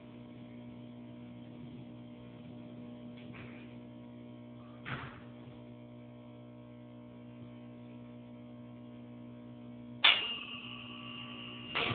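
Elevator running with a steady electrical hum, with a single faint click about halfway through. About ten seconds in a sudden sound starts with a held high tone, matching an elevator's arrival signal.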